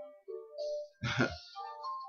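Soft background music of a few held, guitar-like notes, with a short louder burst about a second in.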